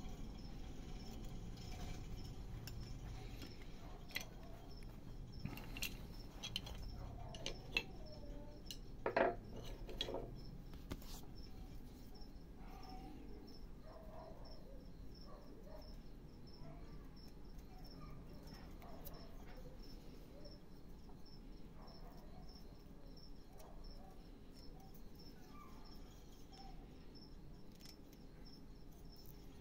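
Small carving knife whittling a stick of wood by hand: faint short slicing and scraping strokes with a few sharper clicks, the loudest about nine seconds in.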